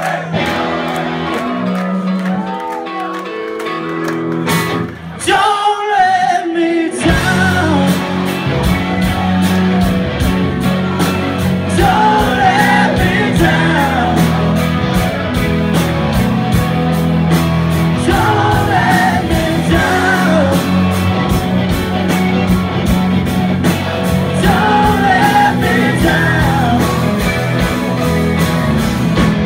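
Live rock band playing: about seven seconds of sustained guitar notes with a sung glide, then the full band with drums comes in on a steady beat and a singer sings over the guitars.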